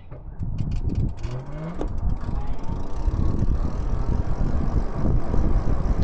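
Lyric Graffiti e-bike pulling away after a turn. Its electric motor gives a faint whine that rises in pitch as the bike gathers speed, over growing wind rush on the microphone. A few freewheel ratchet clicks come in the first second.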